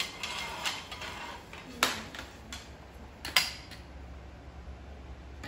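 Light rustling and clatter, then two sharp knocks of hard objects, about two seconds and three and a half seconds in.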